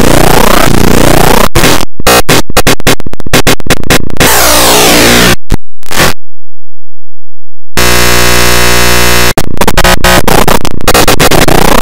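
Very loud, clipped, heavily effect-distorted audio: a harsh cacophony of noise with rapid stuttering cut-outs. About six seconds in it drops to only a very deep sound, then a buzzing tone with many overtones comes in for about a second and a half. After a short dropout the harsh noise returns.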